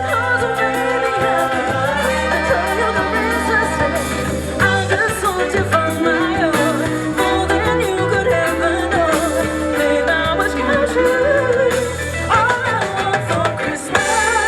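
Live band playing upbeat Latin-style music, with a melody line over a steady bass.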